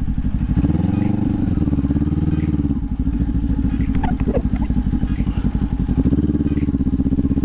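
A 2018 Kawasaki Ninja 400's parallel-twin engine running under way. The engine note climbs and settles about a second in, dips near the middle, and climbs again near the end.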